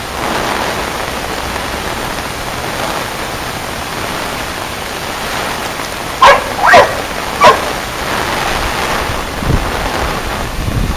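Heavy rain pouring onto floodwater, a steady hiss, with a dog barking three times about six to seven and a half seconds in.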